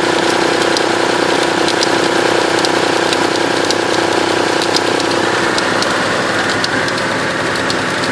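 Mitsubishi 3000GT's non-turbo V6 idling steadily, with sharp clicks from the belt area at the front of the engine, often in pairs about once a second: an unexplained click whose cause the owner does not know.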